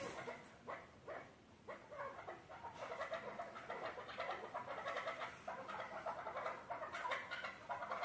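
Chukar partridges calling: rapid clucking 'chuk' notes, a few separate notes at first that thicken into a steady fast chatter from about three seconds in.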